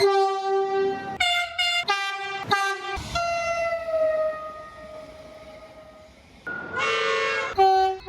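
Train horn sounding a series of blasts: a long one, then four quick short toots, then a long held blast that drops slightly in pitch and fades. Two more blasts follow near the end.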